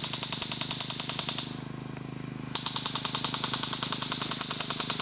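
Airsoft electric rifle firing full-auto in two long bursts, a rapid, even stream of clicks with a pause of about a second between them.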